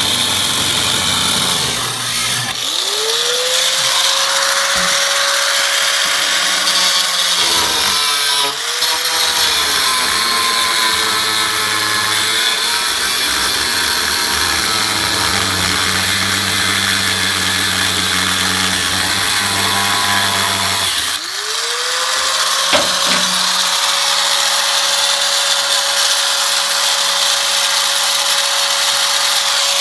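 A high-speed power tool spins up to a steady whine and works the car's sheet metal, its pitch dropping and wavering under load. It stops briefly, spins up again about two-thirds of the way through, and winds down near the end.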